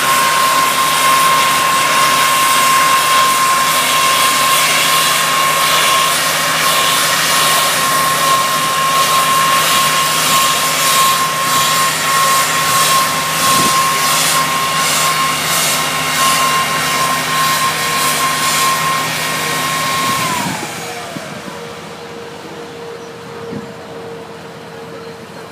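Vestergaard Elephant Beta de-icing truck's forced-air nozzle blasting de-icing fluid: a loud, steady rushing with a high whine. About 20 seconds in the spray shuts off and the whine slides down in pitch, leaving the truck's engine running with a quieter, lower steady whine.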